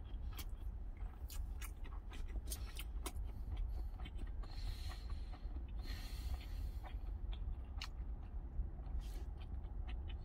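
A person chewing a mouthful of food, with scattered small clicks. Under it runs a steady low rumble.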